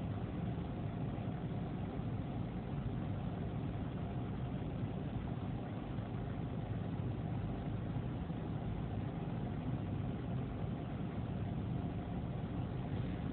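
Steady engine and road noise inside a moving vehicle, picked up by a dashcam: an even low hum that does not change.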